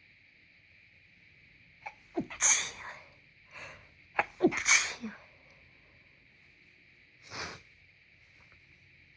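Congested sneezing: two loud sneezes about two seconds apart, each led by a quick rising gasp as the breath is drawn in. A short, softer breathy sound follows a few seconds later.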